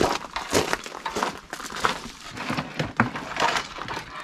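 Hands working the wire connections and sliding plastic heat-shrink tubing over them: irregular crinkling, rustling and small clicks.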